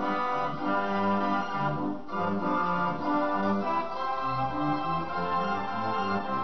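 Background organ music: sustained notes over a bass line that changes note every half second or so.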